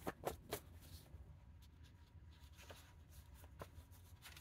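Near silence, with a few faint taps and light rustles of cards being handled on a wooden tabletop, a small cluster in the first half-second and a couple more later.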